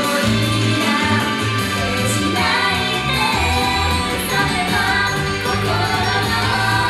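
Female idol group singing a pop song live into microphones over recorded backing music, with a steady bass line and beat.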